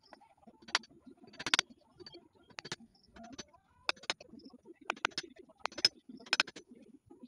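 Chisel chopping into the end grain of a log round to hollow it out: a series of sharp, irregular knocks and cracks as wood chips split away, about one or two a second.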